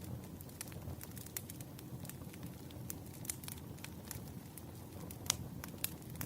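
Wood fire crackling, with scattered irregular pops and snaps over a low rumble and one louder pop about five seconds in.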